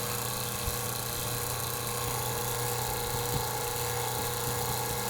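Two-stage HVAC vacuum pump running steadily while it evacuates a system held in deep vacuum, near 144 microns.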